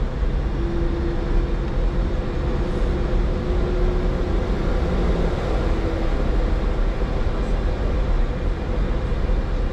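Steady cockpit noise of an Airbus A310 on the ground: engine and airflow rumble with a faint steady hum running through it.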